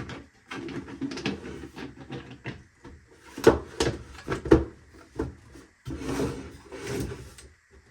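3D-printed plastic toolbox parts being handled and pushed together: a run of plastic clacks and knocks, the loudest two about halfway through.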